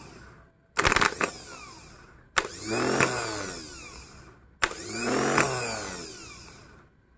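Serviced Toyota Rush starter motor bench-run off a battery: a clack as the solenoid is energised, then the motor whirs up to speed and winds down. This happens about three times, near one, two and a half and four and a half seconds in. It spins up freely each time, showing the rebuilt starter now works.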